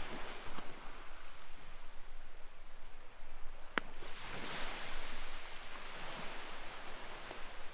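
Small waves washing in on a pebble beach, with the surf swelling and easing off and one wash building a little past the middle. A single sharp click sounds a little before that.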